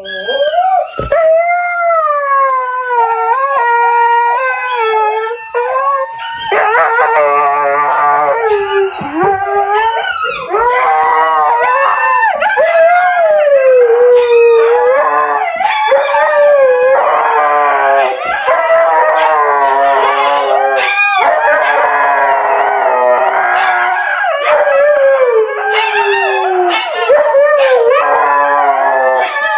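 Huskies howling with long, wavering howls. One dog howls alone at first, and about six seconds in a second dog joins, their howls overlapping from then on.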